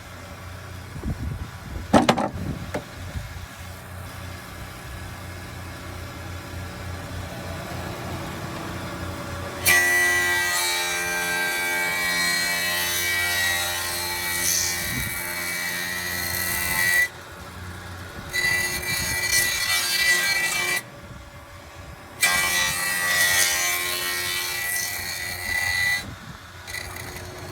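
Sawmill planer with a 20-inch spiral cutter head, driven by a 5 horsepower motor, planing black walnut. The machine first runs steadily with a low hum. About ten seconds in, the cutters bite into the wood with a loud, high-pitched whine, and this cutting breaks off and resumes several times.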